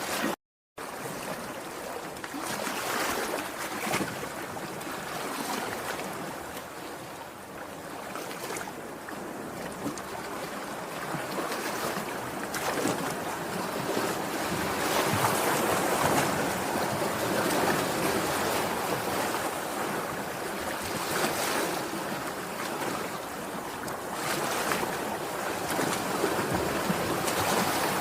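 Sea surf: waves breaking and washing on the shore in a continuous rushing hiss that swells and ebbs, loudest about halfway through and again near the end. The sound cuts out for a split second just after the start.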